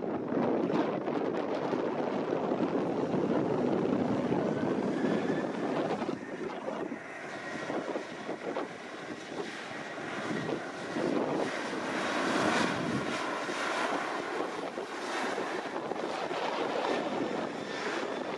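Boeing 737-800's CFM56 jet engines at take-off thrust, a steady roar with a faint rising whine about five seconds in, the sound spreading higher in pitch later on. Wind buffets and distorts the microphone.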